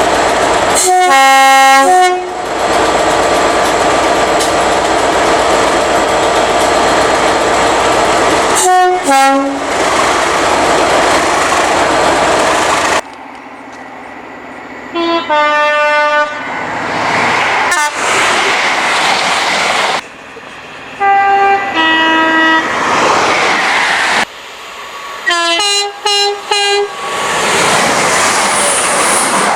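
British main-line train horns sounding about six times, several as two-tone blasts that step between a high and a low note. Between the blasts comes the running noise of passing trains, broken by abrupt cuts from one clip to the next.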